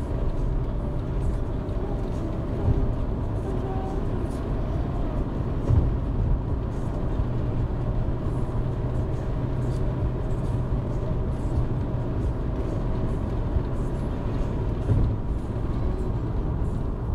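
Steady road and engine noise heard from inside a moving vehicle at highway speed, with a low engine drone and a few brief thumps.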